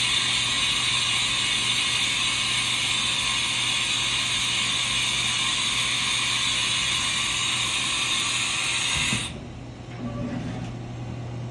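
1994 Haas VF-2 CNC vertical machining center running with a steady, high-pitched mechanical whir. The whir cuts off suddenly about nine seconds in, and a steady low hum carries on.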